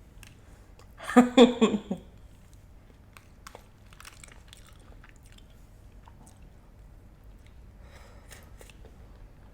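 Close-up eating sounds: chewing and biting on food with faint crunches and wet mouth clicks. About a second in, a short voiced vocal sound that is the loudest thing heard.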